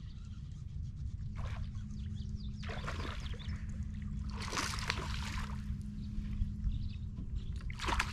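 A hooked bass splashing at the water's surface beside the boat as it is reeled in, in several separate bursts a second or two apart, over a steady low hum.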